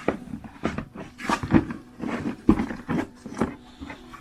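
An old bag being handled: irregular rustles and knocks.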